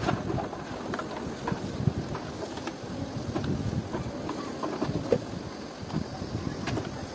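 Water sloshing in a plastic tub and a brush scrubbing the hand beater's plastic housing parts, with scattered small knocks of plastic against plastic.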